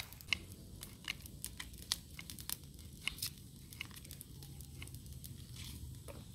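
Leafy plant stems being snapped and torn by hand: a string of irregular crisp snaps and tearing over a low steady rumble.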